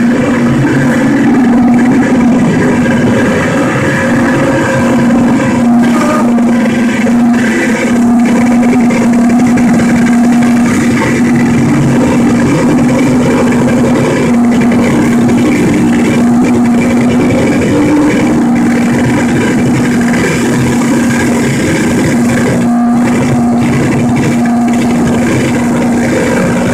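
Loud electronic noise music from a chain of effects pedals and a small keyboard played through a Crate guitar amplifier: a dense, distorted wash with a steady low droning tone that breaks off briefly a few times.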